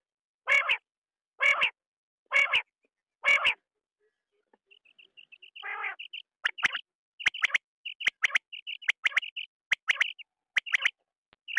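Quail calling. First come four raspy calls about a second apart, then, after a short gap, a run of quick high chirps and sharp clipped calls, about two a second.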